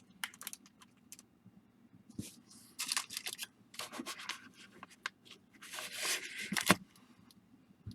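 Sealed baseball card packs being handled and shifted around: wrappers crinkling and rustling in irregular bursts, with light taps and clicks as packs are set down. The longest stretch of crinkling comes about six seconds in, ending in a sharp click.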